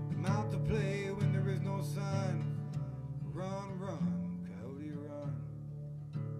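Acoustic guitar strummed steadily while a voice sings two long, wavering phrases without clear words.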